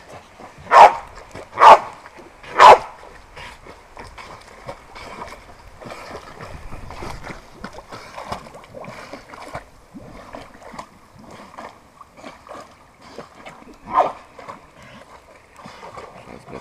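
A dog barks three times, about a second apart, then once more near the end, over the sloshing and splashing of a dog swimming in a garden pool.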